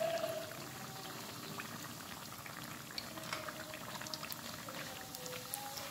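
Battered banana fritters deep-frying in hot oil in a wok: a steady sizzle of bubbling oil, full of small crackles and pops.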